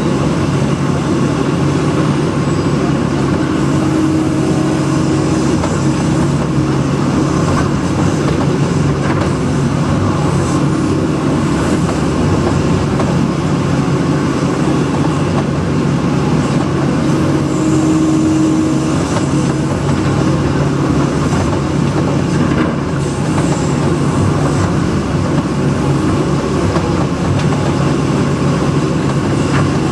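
Case CX160B excavator's diesel engine running steadily while digging a trench. A slightly higher whine rises briefly about four seconds in and again around eighteen seconds.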